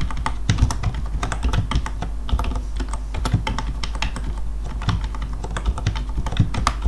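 Typing on a computer keyboard: quick, irregular keystrokes, several a second, over a low steady hum.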